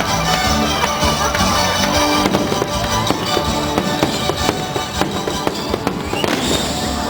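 Fireworks bursting in many repeated bangs over a fireworks show's accompanying music.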